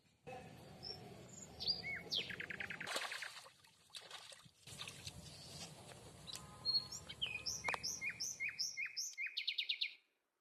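Birds calling outdoors: quick chirps and trills, then a series of about a dozen sharp notes that each drop in pitch, coming faster toward the end, over a low steady background hiss.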